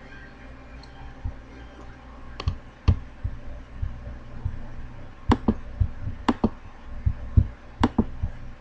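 Computer mouse buttons clicking a number of times at irregular intervals: a few sharp clicks mixed with duller low knocks, over a steady low hum.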